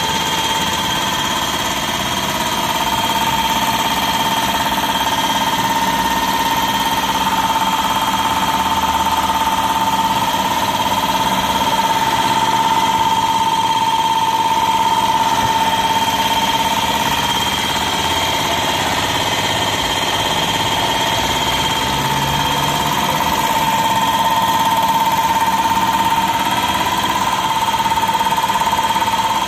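Belt-driven twin-cylinder piston air compressor with an electric motor running steadily, a fast mechanical clatter from the pump with a steady whine running through it.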